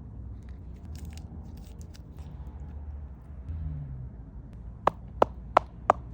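Faint handling and crackling noises, then four quick sharp taps about a third of a second apart near the end.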